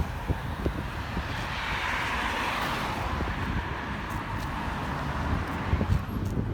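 Outdoor background noise: a distant engine that swells and fades about two seconds in, over a steady low rumble of wind on the microphone.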